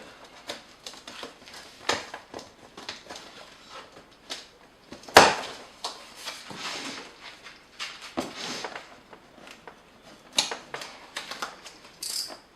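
Cardboard box and packing being handled: a run of rustles, crinkles and small taps, with one sharp knock about five seconds in.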